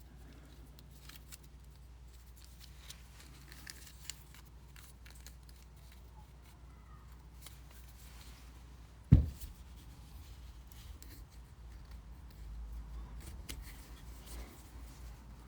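Faint small clicks and handling sounds of a rubber O-ring and Teflon seal being worked onto a power steering gear piston by hand, with a single low thump about nine seconds in.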